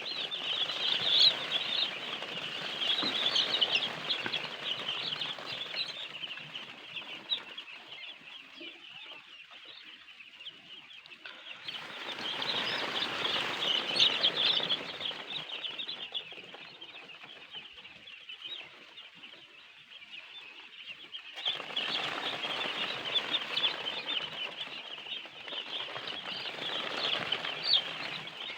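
A large flock of newly arrived day-old chicks peeping all together, a dense chorus of short high chirps. It swells louder three times, with quieter spells between.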